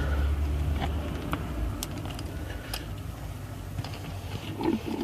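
Light scattered clicks and taps of small gear-knob adapter pieces being handled and sorted, over a steady low hum.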